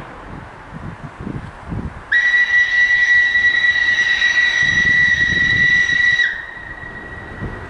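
Steam locomotive whistle blown once: one long steady note of about four seconds that slides up as it starts and dips as it cuts off.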